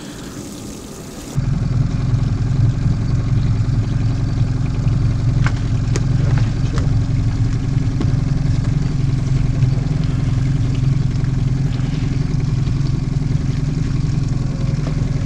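Boat motor running at a steady trolling speed: a loud, even, low drone that comes in abruptly about a second in, after a moment of faint hiss, with a few light knocks over it.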